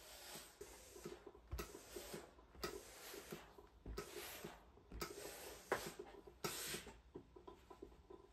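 A clothes iron being pressed and slid over a damp pressing cloth on crochet work: faint, uneven swishes of cloth with small knocks, about one every second.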